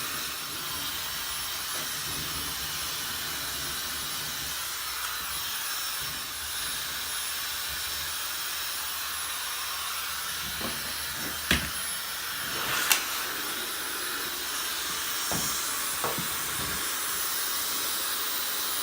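Dyson Supersonic hair dryer running steadily on its cold setting: an even rush of air with a thin, steady high whistle on top. Two short knocks sound a little past the middle.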